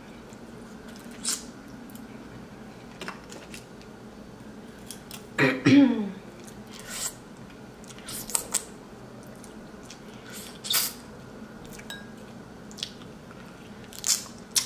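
A person eating seafood close to the microphone: scattered short clicks, smacks and crunches of chewing and handling shells and utensils. There is a brief falling vocal sound about five and a half seconds in.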